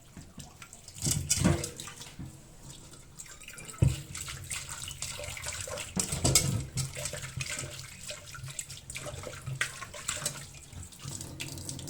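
Water from a tap running and splashing in a sink, broken by irregular clatters of handling, with a sharp knock about four seconds in.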